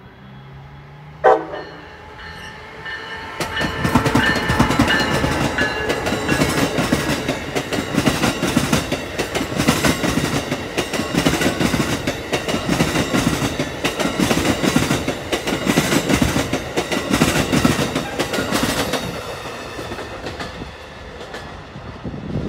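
Amtrak passenger train with an ACS-64 electric locomotive passing at speed. A short, loud horn blast comes about a second in. Then the wheels clatter rapidly over the rail joints for about fifteen seconds, fading as the train recedes.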